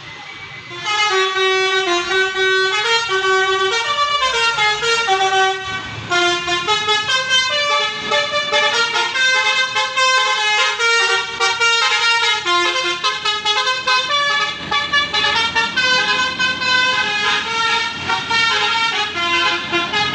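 Indonesian bus 'telolet basuri' multi-tone horn playing a quick stepping melody of many notes, starting about a second in and continuing throughout.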